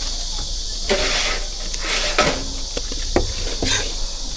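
Steady high chirring of insects, with a few short clattering knocks and scrapes about one, two and three seconds in, like utensils and containers handled at a food stall.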